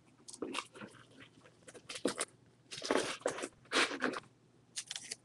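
A handful of plastic-sleeved trading cards rustling and clicking against one another and the cardboard box as they are pulled out, in a string of short, uneven scratches.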